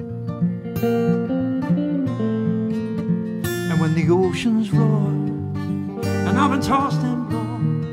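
Acoustic guitar strummed with an electric guitar playing held lead notes over it, in an instrumental passage between sung lines. From about halfway, wavering notes with vibrato come in over the chords.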